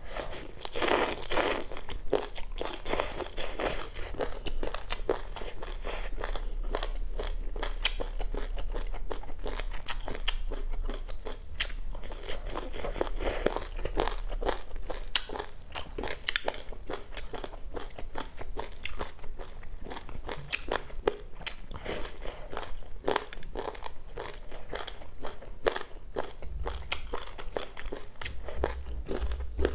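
Chicken feet being bitten and chewed, a steady run of small crunches and clicks, busier in a few stretches.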